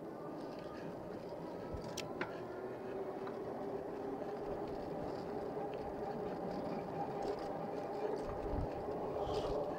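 Bicycle rolling along an asphalt road: a steady tyre and road rumble with a hum, a few light clicks, growing slightly louder.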